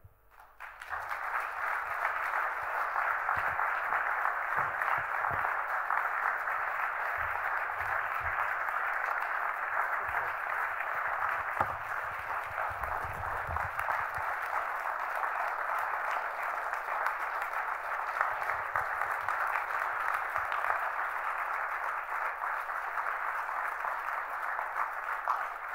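Audience applauding: a long, steady round of clapping that starts just under a second in and carries on without a break.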